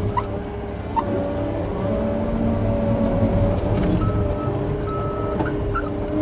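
John Deere 335P skid steer's diesel engine running under load, its pitch shifting as it works. Its reversing alarm beeps twice about four seconds in as the machine backs up.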